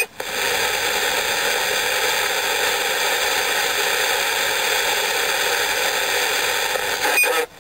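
Steady hiss of radio static from a receiver with no usable signal: the walkie-talkie's unstable transmitter has drifted out of the receiver's passband.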